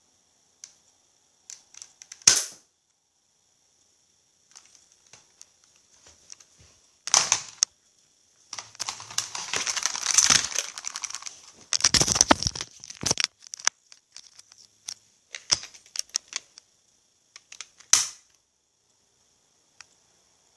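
Sharp clicks, clacks and rattling from handling a BB-gun Desert Eagle pistol. There are single knocks about two and seven seconds in and again near the end, and a longer run of rattling in the middle.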